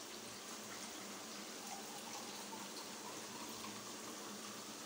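Mutton kofta curry masala sizzling gently in its oil in the pan on the stove: a faint, steady hiss with small pops, the masala fried down until the oil has separated.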